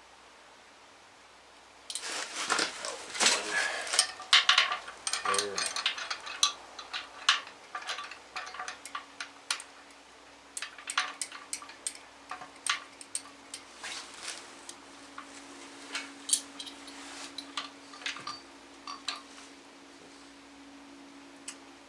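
Metal engine parts and tools clinking and clattering as they are handled, a burst of quick knocks and clinks about two seconds in that thins out to scattered clicks. A faint steady hum runs under the later part.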